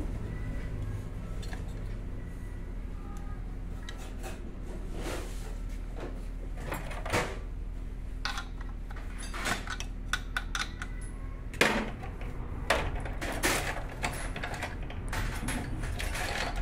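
Scattered knocks, clicks and rattles of tools and compressor parts being handled, including the plastic cooling fan, over a steady low hum.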